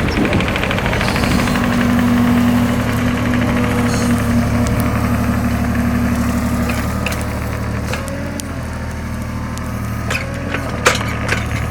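Heavy machine's engine running steadily, its tone shifting about two-thirds of the way through, with a few sharp knocks near the end.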